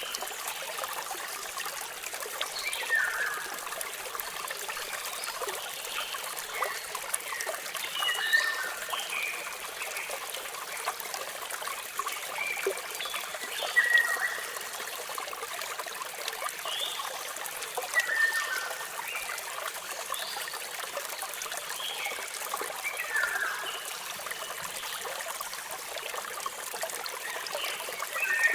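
Waterfall running steadily, a soft hiss of falling water, with birds chirping over it in short, mostly falling calls every second or two.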